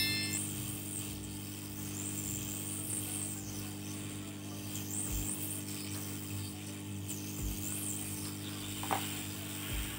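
Hot-air rework gun blowing steadily on a circuit board to desolder a faulty amplifier IC, a constant hum with a hiss over it.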